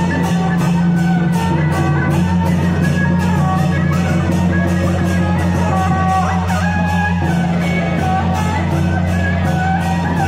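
Loud music with a steady beat, about three beats a second, over a held low bass and melodic lines.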